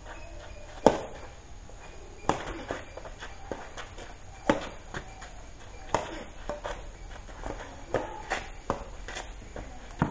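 Badminton rally: rackets strike the shuttlecock with sharp cracks, the loudest about a second in and the rest following every one to two seconds, with shoes scuffing on a dirt court between shots.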